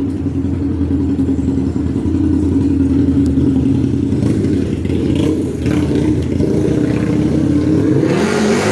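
Street traffic: a motor vehicle's engine drones steadily close by. Near the end a vehicle speeds up, its engine note rising with a louder rush.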